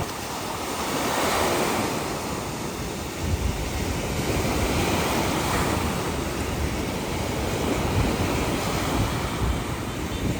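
Sea waves washing ashore in a steady wash that swells and eases, with wind buffeting the microphone.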